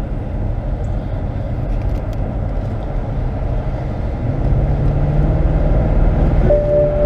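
BMW 645ci's 4.4-litre V8 and road noise heard from inside the car as it drives, a low rumble that grows louder about four and a half seconds in. A steady higher tone sets in near the end.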